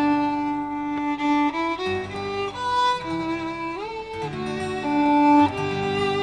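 Instrumental background music with a bowed string melody of held notes, one sliding up about four seconds in.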